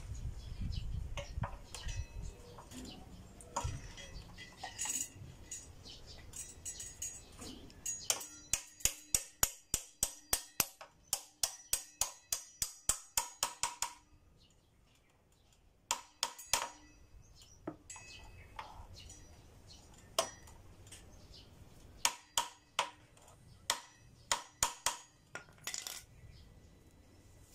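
Metal tools clicking and tapping on the motorcycle's front wheel and axle as the wheel is fitted into the fork. A fast run of sharp ringing taps, about four a second, comes from about eight to fourteen seconds in, then a few more, and another run near the end.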